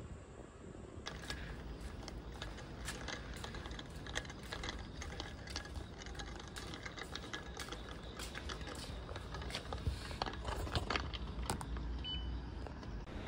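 Ice cubes rattling and clinking inside a tumbler, loud, in irregular clicks starting about a second in.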